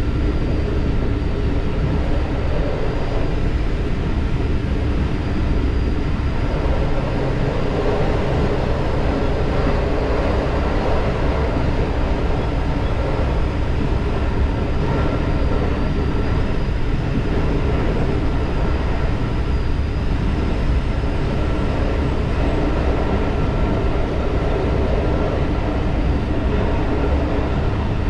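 Diesel railcar running steadily along the track: a continuous low engine and wheel rumble with faint steady tones on top.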